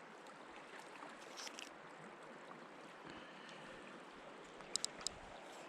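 Steady rush of flowing river water, with three short sharp clicks close together about five seconds in.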